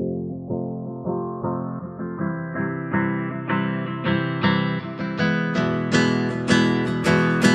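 Background music: strummed guitar with regular strokes about twice a second, the sound growing brighter over the stretch.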